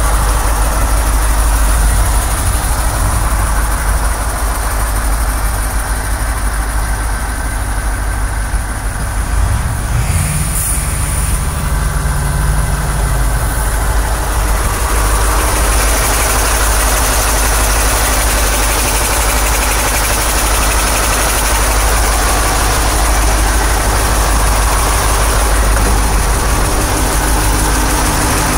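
Diesel engine of a freshly overhauled KamAZ-44108 truck, a YaMZ Euro-2 unit, idling steadily with a deep low rumble.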